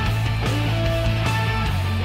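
Background music: a rock track with guitar and a steady bass line.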